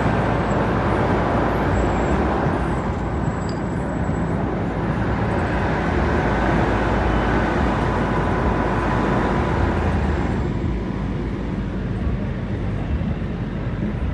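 Diesel engine of a semi truck running steadily as the truck creeps along at walking pace, mostly low-pitched, with its higher part turning duller about ten seconds in.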